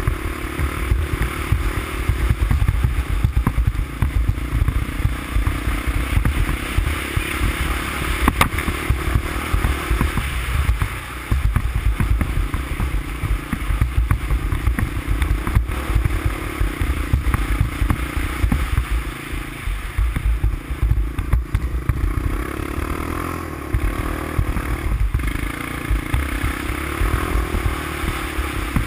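Honda ATC350X three-wheeler's single-cylinder engine running as it rides along, its revs rising and easing off repeatedly, with wind buffeting the microphone and occasional clatter.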